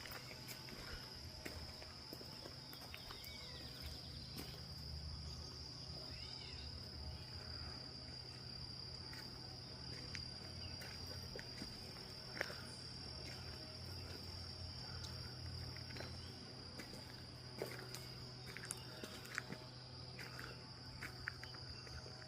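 Steady, high-pitched insect chorus droning without a break, with a few short chirps early on and scattered faint clicks over a low steady hum.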